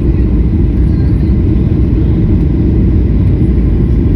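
Steady low rumble of an airliner heard from inside the cabin: engine and airframe noise.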